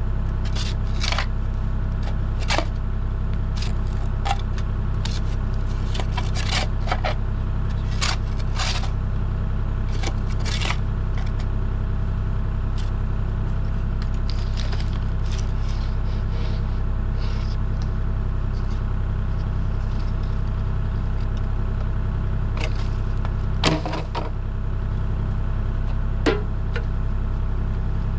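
Heavy equipment engine running steadily, with scattered short knocks and scrapes, and a sharper knock near the end.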